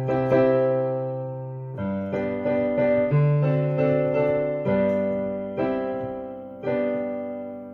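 Piano-sound keyboard playing a hymn's chord accompaniment: full chords struck one after another and left to ring, a few quick changes in the middle, ending on a last chord that fades away.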